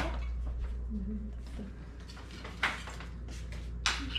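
Two short clinks of cutlery against plates at a dinner table, a little over a second apart, over a low steady hum, with a brief murmur of a voice about a second in.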